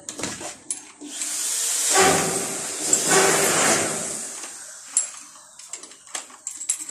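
A hand screwdriver driving a screw into a metal window frame, with scattered sharp clicks and scrapes of metal on metal, more of them in the second half. A loud rushing noise swells up about a second in and fades away over the next three seconds.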